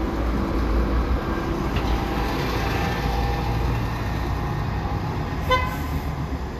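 Street traffic noise with the steady low rumble of a city bus's engine. A short, high pitched toot comes about five and a half seconds in.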